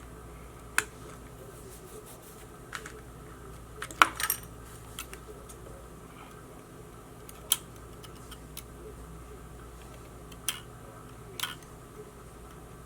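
Sharp little metallic clicks and taps, spaced a second or more apart, from small hand tools working on the parts of a disassembled action camera, with the loudest cluster about four seconds in. A faint steady hum underneath.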